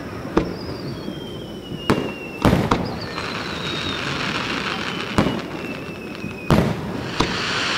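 Aerial fireworks going off: about six sharp bangs at uneven intervals, two close together early on and another pair near the end, over a spreading crackle from the bursting shells. Thin high whistling tones slide slowly down in pitch under the bangs.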